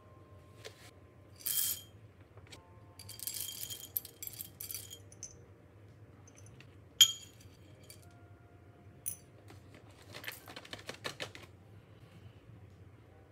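Coffee-brewing gear being handled: brief rustles and light clinks, one sharp clink about seven seconds in, then a quick run of small clicks.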